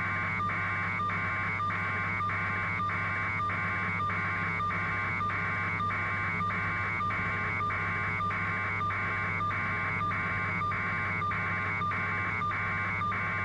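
Helicopter cabin noise carried over a phone line: a steady low hum with a buzzy tone that pulses about twice a second.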